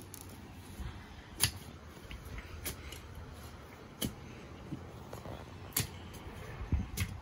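Metal garden fork jabbed repeatedly into garden soil: five short, sharp strikes of the tines, about one every second and a half.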